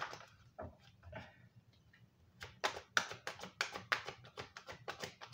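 A deck of mermaid oracle cards being shuffled by hand: a few soft taps at first, then from about two and a half seconds in a quick run of card flicks and snaps, about five a second.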